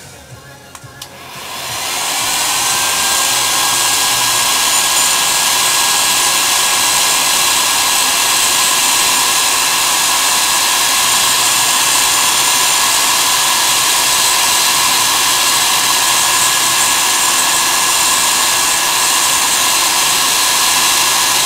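Electric paint-stripper heat gun, fitted with a soldering-iron tip as a hot-air nozzle, switched on about a second in. Its fan comes up to speed over about a second, then runs with a steady rush of air and a steady whine, blowing hot air to desolder a circuit-board component, and stops abruptly at the end.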